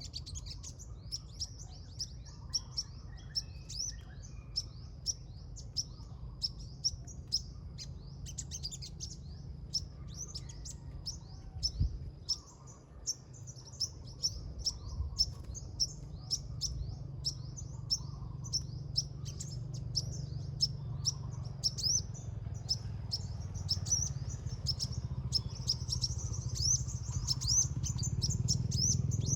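Small birds chirping in quick, short, high notes, one after another without a break. A steady low rumble runs underneath, and there is a single knock about twelve seconds in.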